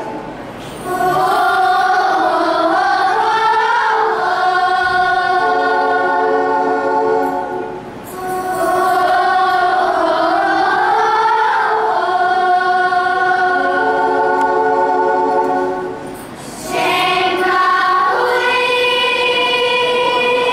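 A choir singing slow, sustained phrases, with short breaks between phrases about every eight seconds.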